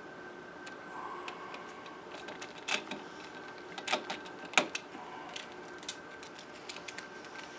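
Irregular clicks and taps of hands working a wired Decora three-way wall switch and its wires, plastic and metal knocking, with a few louder knocks near the middle.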